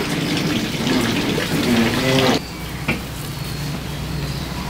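Fat and oil dripping from a spit-roasting suckling pig sizzle and crackle on hot charcoal: a steady hiss with scattered pops that turns quieter about halfway through.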